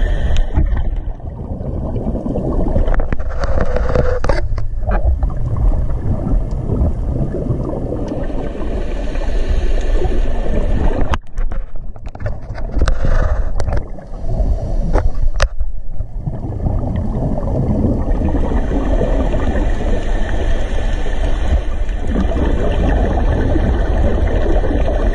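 Underwater sound picked up by a diving camera: a steady low rumble with gurgling, and a few sharp clicks about halfway through.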